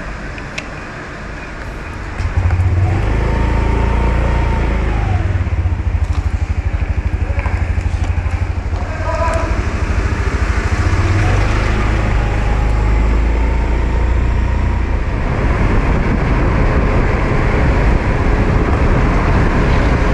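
Heavy wind rumble on the microphone of a moving motor scooter, with road traffic around it. The rumble starts suddenly about two seconds in, and brief higher tones from the traffic come now and then.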